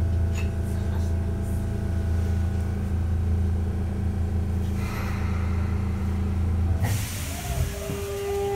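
Onboard running sound of a Sotetsu 8000 series train: a steady low hum with a few steady tones. About seven seconds in a loud hiss sets in, and the Hitachi GTO-VVVF inverter starts to whine, its tones sliding briefly and then holding.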